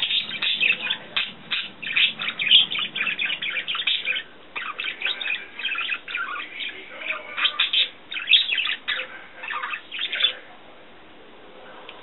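Pet budgerigar warbling: a fast, dense run of chirps and twitters that stops about ten seconds in.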